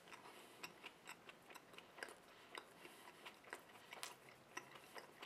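Faint chewing of a mouthful of burger: soft, irregular mouth clicks, about two or three a second.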